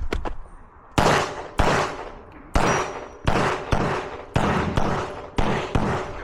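Pistol shots during a fast course of fire: about nine shots, mostly in quick pairs about half a second apart, each ringing out with an echo.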